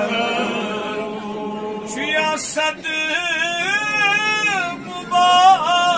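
A man chanting a manqabat, a devotional song in praise of a Sufi saint, in a melodic voice with long held notes that bend and waver in pitch.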